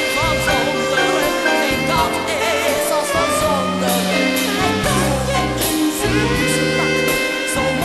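Stage musical number: a singer's voice with vibrato over a band with bass and cymbals.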